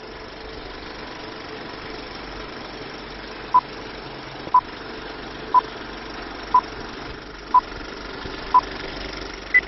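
Film countdown leader beeps over the steady whir of a film projector running: six short high beeps exactly a second apart, then one higher-pitched beep near the end.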